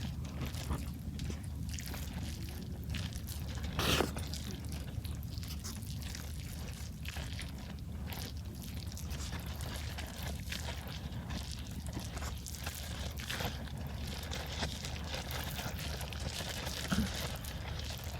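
Strong wind rumbling steadily on the microphone, with scattered light clicks and crinkling throughout and a sharper knock about four seconds in.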